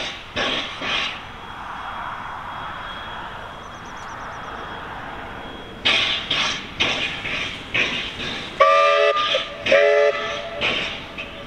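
W class Garratt steam locomotive W934 working slowly, its exhaust beating in sharp chuffs about two a second, with a stretch of softer steam hiss in the middle. About nine seconds in, its steam whistle gives two short blasts, a second apart.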